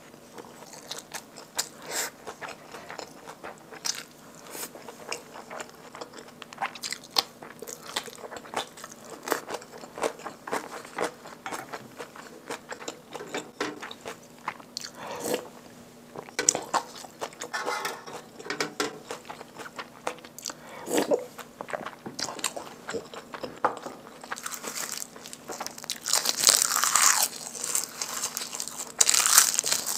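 Close-miked eating: chewing and wet mouth sounds with small clicks of chopsticks and a spoon. Near the end comes a louder dry crinkling as roasted seaweed sheets (gim) are picked up and handled.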